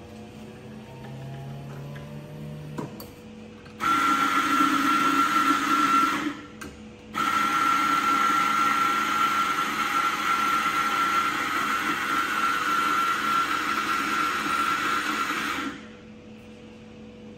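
Electric espresso grinder motor running as it grinds coffee beans into a portafilter, a steady grinding noise with a high whine over it. It starts about 4 s in, stops briefly after about two and a half seconds, then runs again for about eight and a half seconds and stops near the end.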